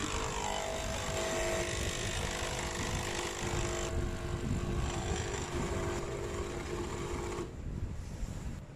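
HiBREW H1B capsule coffee machine running a cold brew extraction from a K-cup: a steady mechanical hum over a hiss. It stops abruptly about seven and a half seconds in.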